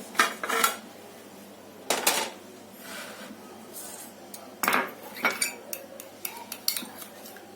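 Spoon clinking and scraping against a bowl in a few scattered strokes, as tomato paste is stirred with a little water.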